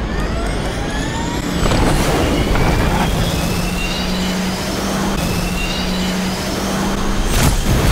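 Fighter jet engines in a film-trailer mix: a loud rumbling roar with several whines rising slowly in pitch, two sudden hits (about two seconds in and near the end) and a steady low drone in the middle.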